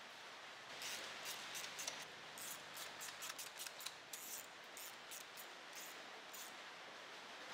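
Small steel nuts and washers clicking and ticking as they are handled and threaded by hand onto the front timing-cover studs of an engine block. Quiet, irregular light metallic clicks, most of them coming between about one second in and near the end.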